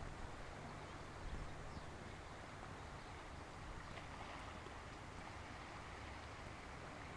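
Faint, steady outdoor background noise: a low rumble and an even hiss, with no distinct events standing out.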